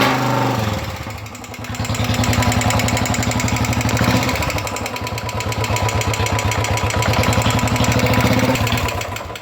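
Royal Enfield Bullet 350 Electra's single-cylinder engine running with a fast, even beat and an abnormal tapping noise from the engine, the sign of an engine fault that is traced to the tappets.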